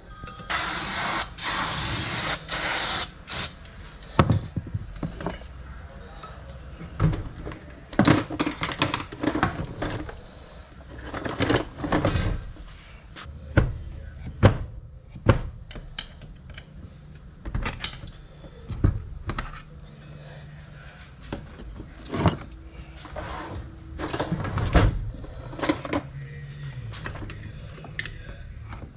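Workshop disassembly of a Hilti TE 1000 breaker: scattered sharp knocks and clicks of tools and metal parts being handled. Near the start there is a loud hiss lasting about three seconds.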